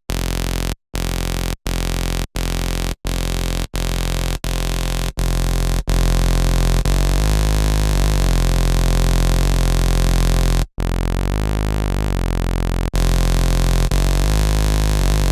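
Electronic synthesizer sound, heavily processed through a stack of effects, with a strong low end. It plays as short repeated notes about every 0.7 s, then as a held, sustained sound with a brief cut about eleven seconds in. It is played as a before-and-after comparison of the effects stack.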